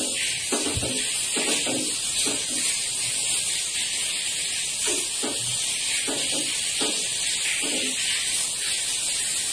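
Pine needles boiling in a pot of water: a steady hiss with faint, irregular bubbling and small knocks beneath it.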